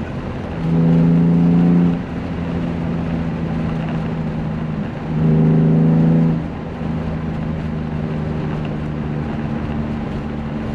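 BMW E36 M3's straight-six engine and exhaust heard from inside the cabin, running at steady revs while cruising. The note swells louder twice, about half a second in and again around five seconds, each time for over a second, with no change in pitch.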